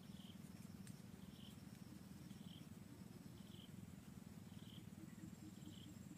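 Near silence: a faint steady low buzz, with a faint short high chirp repeating about once a second.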